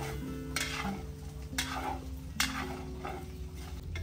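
Metal spatula scraping and stirring minced pork lungs and heart frying in a wok, one scrape about once a second, over soft background music.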